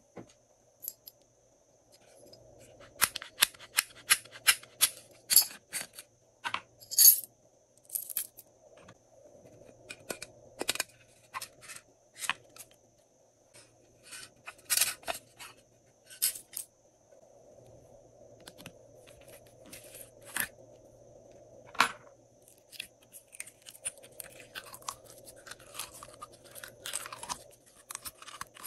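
Hands handling plastic slime containers and add-ins: irregular sharp clicks, taps and crackles. Near the end comes a denser run of small sticky crackles as clear pink slime is squeezed out of a soft plastic jar.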